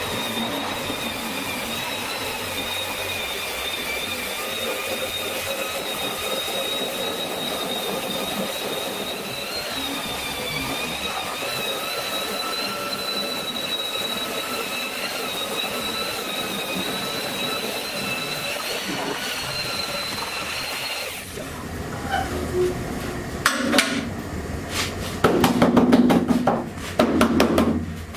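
Angle grinder with an abrasive stripping disc running steadily with a high whine as it strips a car bonnet down to bare metal. About 21 seconds in it stops, and a run of loud metallic knocks and clatters follows.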